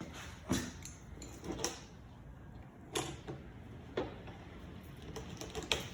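Scattered sharp clicks and knocks of hand tools and parts being worked on a chainsaw's plastic handle, about seven in all, the strongest about half a second and three seconds in.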